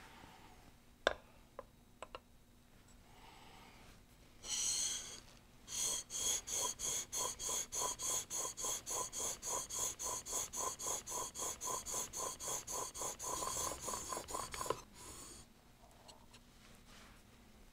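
Plane blade honed on a waterstone in a jig: rapid back-and-forth scraping strokes, about four a second, for some nine seconds, as a 10-degree back bevel is put on the smoothing plane iron. A few light clicks come first as the blade is set on the stone.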